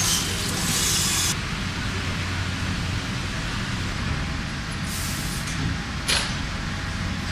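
WFL M60 MillTurn machine running with a steady hum while machining a crankshaft. A burst of hissing spray comes in the first second or so, another about five seconds in, and a short sharp hiss about six seconds in.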